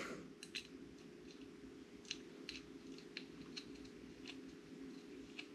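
Faint, scattered small clicks and scrapes of an Allen key and small bolts being worked into a 40 mm hotend fan to fasten it, over a low steady hum.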